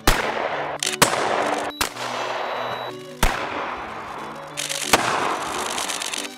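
Five loud, sharp bangs at uneven intervals about a second or more apart, each trailing off in a hissing rush, over violin music.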